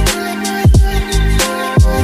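Background music with a steady beat: a deep kick drum and bass under sustained instrument tones.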